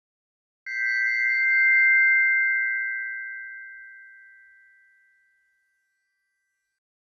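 A single struck chime rings once about half a second in: two clear, steady bell-like tones that swell slightly, then fade away slowly over about five seconds.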